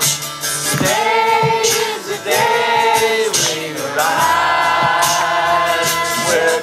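Live song with a group of voices singing the chorus together, holding long sung notes: an audience singing along with the band.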